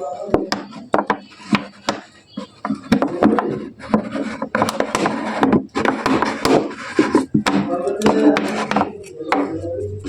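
A knife cutting and scraping a plastic bottle's wall, a run of irregular clicks, crackles and scrapes as the plastic flexes.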